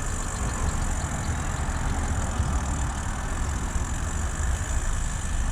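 Steady hum of road traffic, heaviest in the low rumble.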